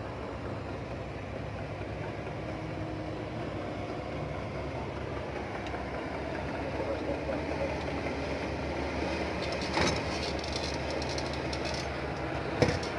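Kobelco 850 excavator's diesel engine running steadily, just after start-up for the air-conditioning check. There are two sharp knocks, one about ten seconds in and one near the end.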